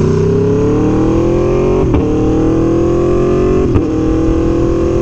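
2017 Aprilia Tuono V4 1100 Factory's V4 engine with an SC Project CRT exhaust, accelerating hard through the gears. The pitch climbs and drops briefly at two quick upshifts, about two seconds in and again near four seconds, then holds.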